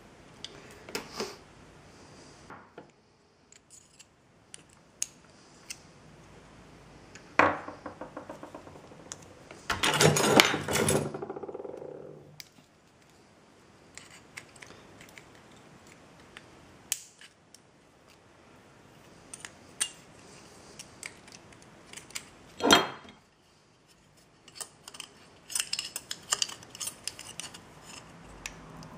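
Small steel parts of a car's accessory belt tensioner being handled and fitted by hand: scattered clinks and clicks of washers, a steel sleeve and tools, with a loud ringing metal clatter about ten seconds in and a sharp clink near twenty-three seconds.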